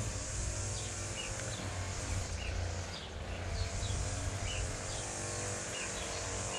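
A steady low hum with a small bird chirping in short calls about once a second.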